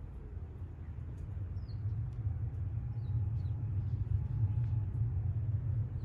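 Low rumble of a passing vehicle, swelling from about a second in and loudest past the middle. Small birds give a few faint high chirps.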